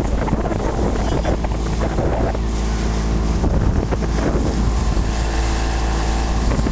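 Speedboat engine running steadily under way, its hum heard through strong wind buffeting on the microphone.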